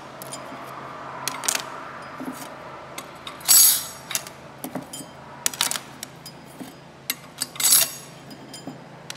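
Steel plates and friction discs of an Oliver OC-46 crawler's steering clutch pack clinking as they are stacked one by one over the toothed hub into the clutch drum. A sharp metal clink comes about every two seconds, some ringing briefly, with lighter clicks between.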